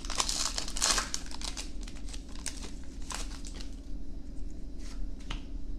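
Foil wrapper of a Pokémon trading card booster pack crinkling and tearing open by hand, dense for the first second and a half, then thinning to scattered crackles as the cards are drawn out.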